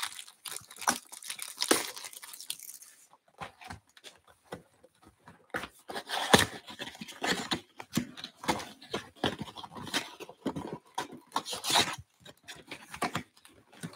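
Plastic shrink wrap being torn and crinkled off a cardboard box of 2022 Bowman Draft baseball cards for the first three seconds or so. Then the cardboard box is handled, its end flap opened and the inner tray of packs slid out: irregular rustles, scrapes and taps.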